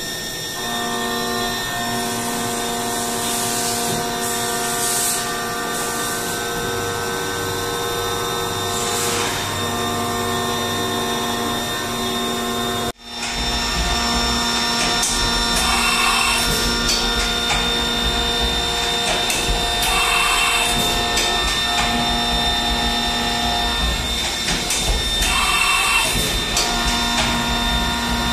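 Haas VF-3 three-axis vertical machining center running, a steady machine whine of several held tones over a hum. After a brief break partway through, the hum gets deeper and short bursts of noise come every four to five seconds.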